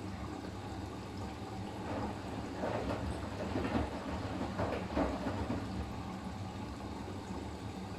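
Siemens iQ500 front-loading washing machine tumbling in its delicates/silk programme: a steady motor hum, with water and laundry sloshing in the drum in two surges around the middle.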